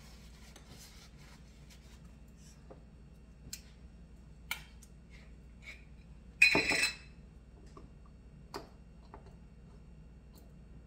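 Small clicks and taps as a spice jar is handled and opened and metal measuring spoons are picked up, with one louder, brief clatter with a slight ring about six and a half seconds in.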